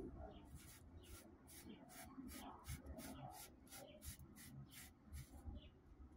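Faint scratchy rubbing of cardboard tape-roll cores as they are shifted by hand around a glass round-bottom flask, a quick run of short scratches about two to three a second.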